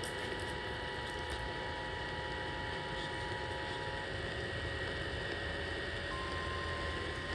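Steady static hiss with a low rumble and faint steady tones. A faint two-note tone stops about four seconds in, and a faint single tone starts about six seconds in.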